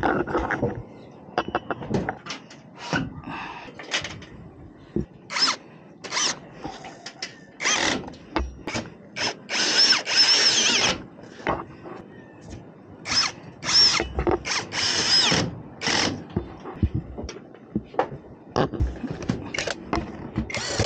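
Cordless power drill run in many short bursts and one longer run about ten seconds in, its motor whine rising as it spins up, driving fasteners on a solar panel mounting frame. Knocks and clinks of handling come between the bursts.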